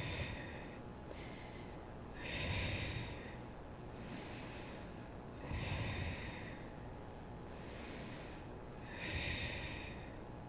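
Slow, deep breathing of a person holding a yoga pose: four long, airy breaths about three seconds apart.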